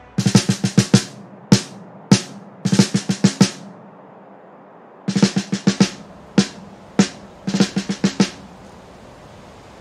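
A lone snare drum playing a repeating figure: a quick run of six or seven strokes, two single hits, then another run, followed by a pause of about a second and a half before the figure comes round again.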